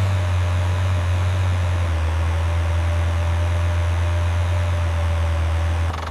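Cartoon vehicle engine sound effect running steadily, a low hum with a faint higher whine over it. The sound drops in level abruptly near the end.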